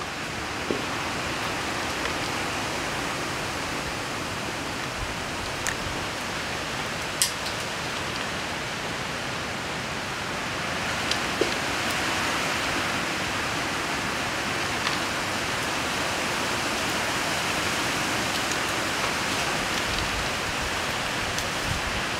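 A steady, even hiss with a few short, sharp clicks scattered through it.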